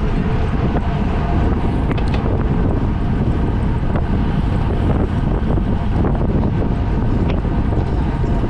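Loud, steady wind rush buffeting the microphone, a dense low rumble with a few faint ticks through it.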